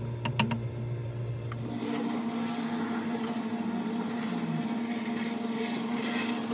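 Steady low machine-like hum, with a few light knocks in the first half second; about two seconds in it changes to a slightly higher steady hum.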